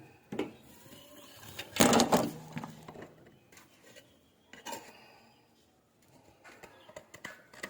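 Pots, dishes and utensils being handled: scattered clinks and knocks, with the loudest clatter about two seconds in.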